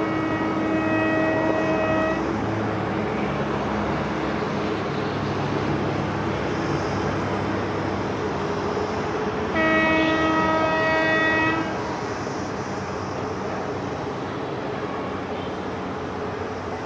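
Indian Railways electric locomotive sounding its horn twice, two steady multi-tone blasts of about two seconds each, the second louder, over the continuous rumble of the approaching train.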